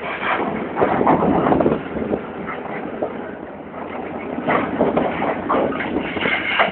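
Stones clattering and grinding as heavy machinery unloads them, with a dense run of irregular knocks. It is loudest about a second in and again around five seconds, easing off in between.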